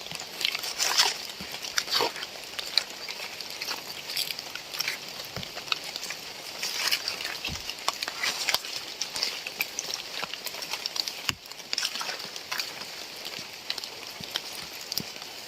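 Rain falling steadily, with many close, irregular drop hits.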